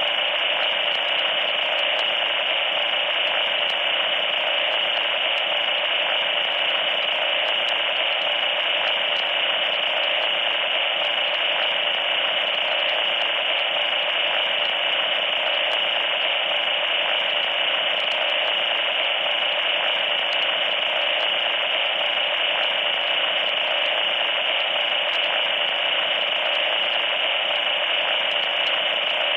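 Loud, steady static noise: a harsh hiss in the middle range with no breaks or changes.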